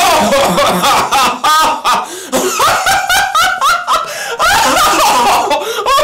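A man laughing loudly and heartily, in long runs of quick ha-ha-ha pulses with short breaks for breath. It is a put-on laugh, forced in obedience to the rule of always laughing at a better's joke.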